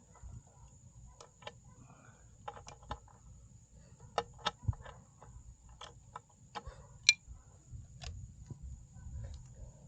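Irregular light clicks and taps of small motorcycle parts being handled while the kickstand safety switch and its clipped connector are worked loose by hand. There are about a dozen, with one sharper snap about two-thirds of the way through.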